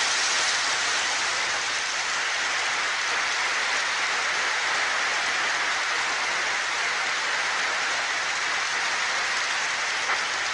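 Sustained applause from a large seated audience: dense, even clapping holding at a steady level.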